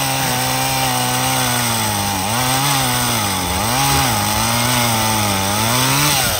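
Chainsaw running flat out while cutting through a log, its pitch sagging and recovering several times as the chain bites into the wood. It winds down near the end.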